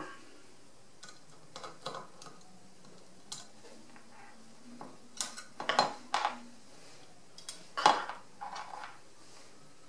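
Small metal parts of an emptied airsoft AK version 3 gearbox shell being handled and lifted out by hand: scattered light metallic clicks and clinks, the loudest about eight seconds in.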